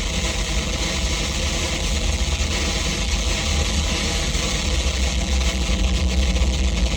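Harsh noise music: a loud, unbroken wall of distorted noise over a heavy low rumble, swelling slightly near the end.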